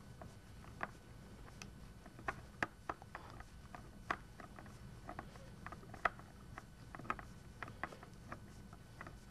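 Phillips screw being turned by hand with a manual screwdriver into a canvas's wooden stretcher bar: small irregular clicks and creaks, the loudest about two and a half and six seconds in.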